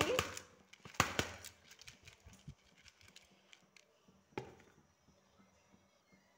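Soaked rice sliding from a glass bowl into a pot of boiling jaggery water, with two sharp clinks of the bowl against the pot about a second in and a single knock a little past the middle. Faint bubbling of the boiling syrup in between.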